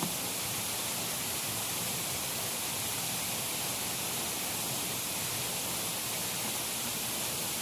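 Steady hiss of light drizzling rain, even and unbroken, with a faint click right at the start.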